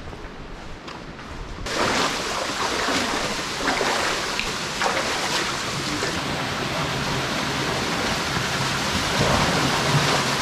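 Steady rushing noise of river water and wind on a moving motorized raft, starting abruptly about two seconds in after a quieter stretch.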